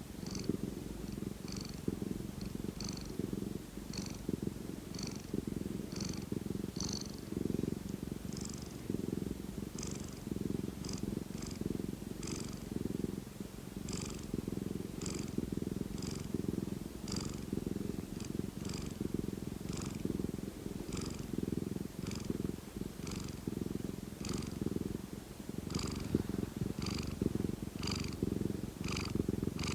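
Domestic cat purring steadily without a break, with a short faint high sound recurring about once a second over the purr.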